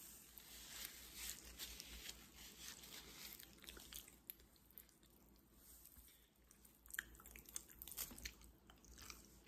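Faint, close-up chewing and mouth sounds of a person eating, with many small wet clicks; the clicks come thickest near the end.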